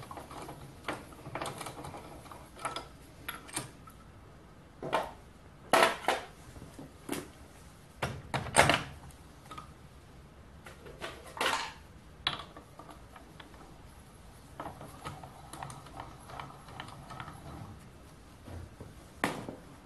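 Irregular metallic clanks and clicks as parts are handled on a metal lathe's compound slide: the tool post is loosened and taken off, and an electric drill is set into its steel-and-aluminium mount. A few sharper knocks stand out, about six, eight and a half, and eleven and a half seconds in.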